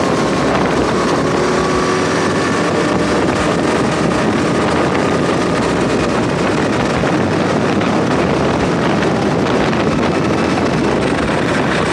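Racing kart engine heard onboard at speed, its note fairly steady, buried in heavy wind buffeting on the microphone.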